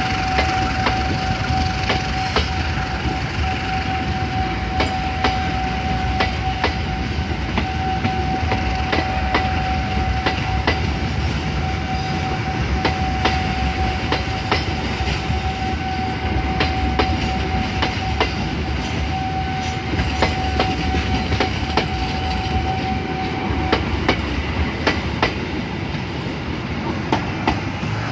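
Sawunggalih passenger train's coaches rolling past at departure speed, wheels clicking steadily over the rail joints. A steady high tone sounds alongside and cuts off suddenly about 23 seconds in.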